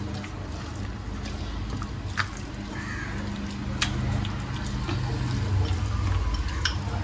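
Hands squishing and rubbing raw chicken breasts in a wet spice-paste marinade in a glass bowl: soft wet squelches with a few sharp clicks, over a low steady hum.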